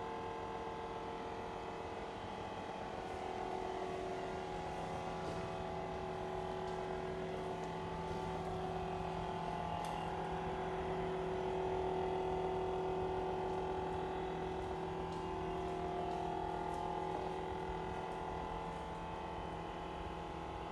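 Faulty refrigerator motor running with a loud, steady hum made of several tones that shift slightly in pitch now and then.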